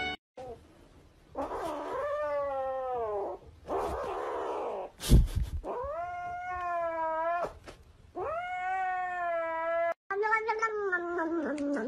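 Domestic cat yowling in long drawn-out calls, four or so, each rising and then sagging in pitch. A sharp thump comes about five seconds in, and a wavering meow follows near the end.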